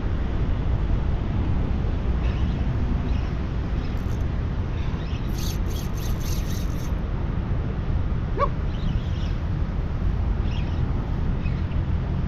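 Steady wind rumble on the microphone. A few faint clicks come about five to seven seconds in, and there is a brief chirp a little after eight seconds.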